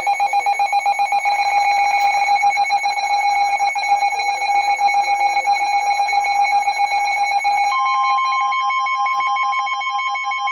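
Emergency Alert System attention tones: a loud, steady electronic alarm tone, joined about three-quarters of the way through by a second, higher steady tone while the first pulses. It signals that an emergency alert, here a National Weather Service special marine warning, is about to be broadcast.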